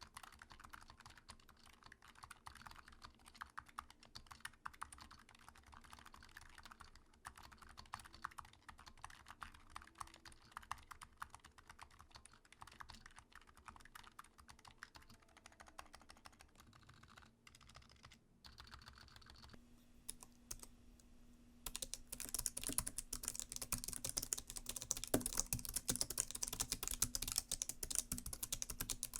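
Mechanical keyboard switches being typed on in fast, continuous keystrokes. About 22 seconds in, after a short pause, the typing becomes much louder and brighter, as a different switch is tested.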